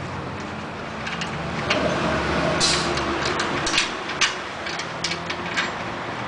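Metal clicks, knocks and a short scrape of a stainless wheel adjuster and axle nut being fitted to the rear wheel axle by hand, over a steady low hum.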